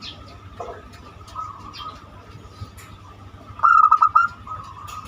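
Zebra dove (perkutut) of the banyumili type cooing. A loud, stuttering phrase of quick notes lasts a little over half a second, about three and a half seconds in, with softer single coos before it.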